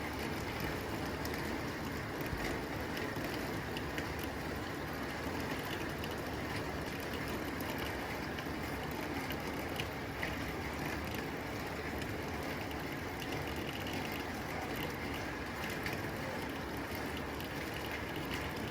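Rain falling on a tin roof: a steady hiss of rain with many small, sharp ticks of drops striking the metal.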